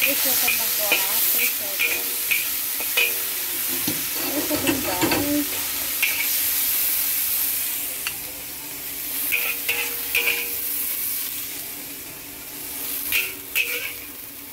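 Chopped string beans sizzling in an oiled wok, with a metal spatula scraping and clicking against the pan in short runs. The sizzle is quieter in the second half.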